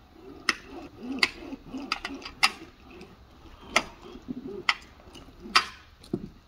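Carpet-seaming hand tools worked over a carpet seam: a low rubbing scrape broken by six sharp clicks at irregular intervals, roughly one a second.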